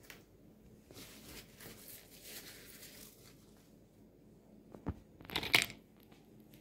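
Faint handling noises of pizza toppings being arranged on dough in a baking tray, with a click just before five seconds in and a short, louder rustle right after it.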